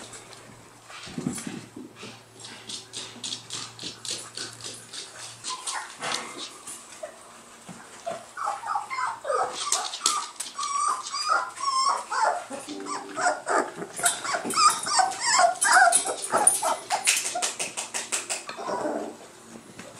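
Four-week-old whippet puppies playing. They give a dense run of short, high-pitched yips and whines from about eight seconds in until near the end. Before that there are mostly light, rapid clicks and taps.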